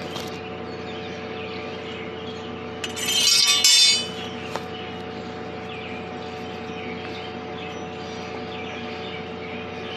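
Steady machinery hum with faint bird chirps; about three seconds in, a loud, harsh rasping sound lasting about a second.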